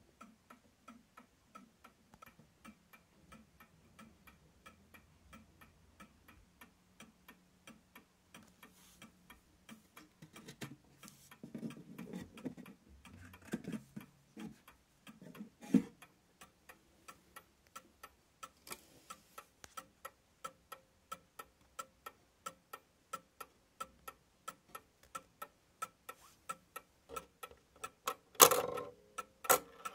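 1930s F. Mauthe mantel clock movement with a round pendulum ticking in a steady, even beat. Midway there is rubbing and knocking from a hand handling the wooden case, with one loud knock, and a sharp knock comes near the end.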